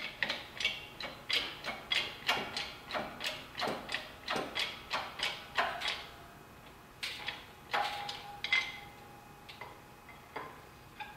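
Shop press being pumped by its handle, clicking in an even rhythm of about three clicks a second, as the ram drives the bearing driver down to seat the transfer-case plug. After about six seconds the clicks slow to a few single ones, with a brief metallic ring about eight seconds in.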